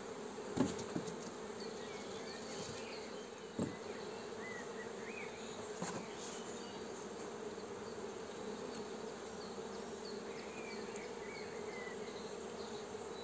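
A colony of Buckfast honeybees in an open hive, humming steadily, with a couple of light knocks about half a second and three and a half seconds in.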